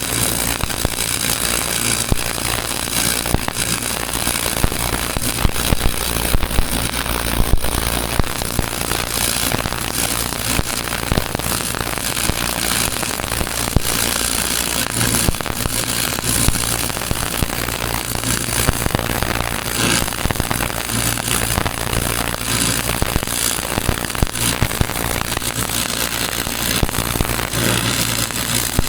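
Electric arc welding: a continuous, dense crackle of the arc laying a repair bead on a cracked boom pin weld, over a steady low hum.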